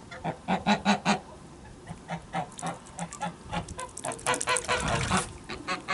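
Flock of white domestic geese honking noisily in quick short calls, with a burst of calls about a second in and a busier run around four to five seconds in.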